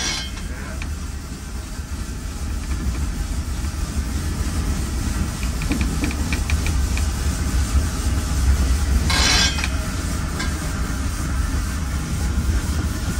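Mount Washington Cog Railway steam train heard from inside its passenger car: a steady low rumble of the moving car and rack, with a short hiss at the start and another about nine seconds in.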